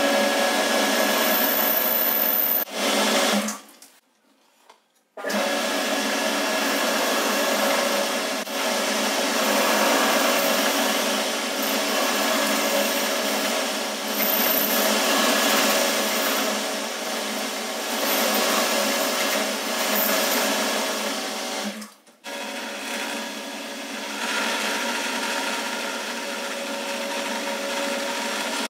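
Boxford lathe running and cutting a small metal part, first with a turning tool and near the end with a drill in the tailstock: a steady machine whine with several fixed tones. It drops out for about two seconds a few seconds in, and dips again about 22 seconds in, after which the tones change.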